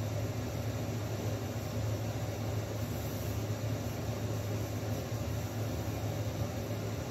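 Steady low hum with an even hiss over it, unchanging throughout: the background noise of a machine running in the room.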